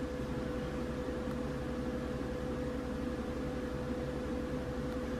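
Steady background hum and hiss with one constant mid-pitched tone, unchanging throughout; no distinct taps or clicks stand out.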